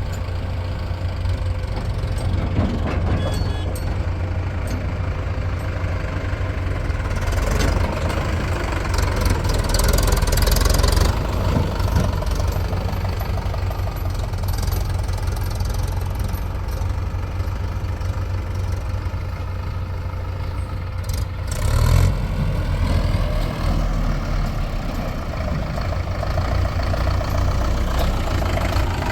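Heavy diesel engine of earthmoving machinery running with a steady low knock. It gets louder and harsher for a few seconds about eight seconds in. There is a brief loud clatter about three quarters of the way through.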